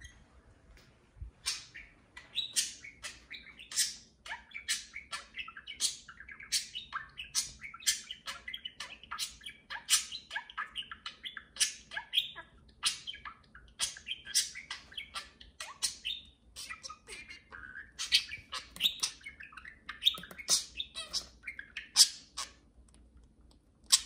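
Two budgerigars chattering and warbling to each other at close range: a rapid, unbroken stream of short chirps and clicks over a wavering warble.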